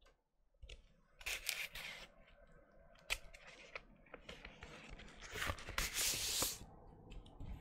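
Cardboard LP record jacket and paper being handled: rustling and sliding with a few light taps, in two louder spells, one about a second in and a longer one from about five to six and a half seconds in.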